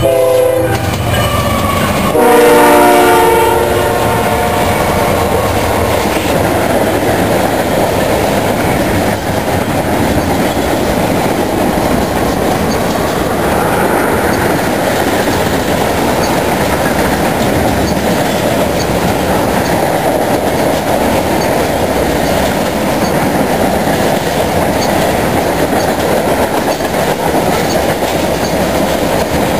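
Horn of a CSX GE ES44AH freight locomotive: a short blast at the start, then a longer, louder blast about two seconds in. A freight train then rolls by with a steady rushing noise and wheel clatter.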